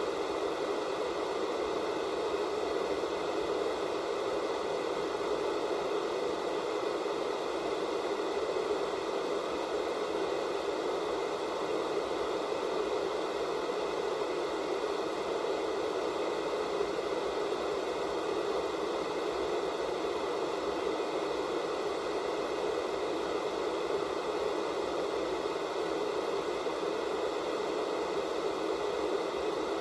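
Steady hiss of analog television static: a TV set tuned to a channel with no signal. A few faint, steady high tones run under the hiss.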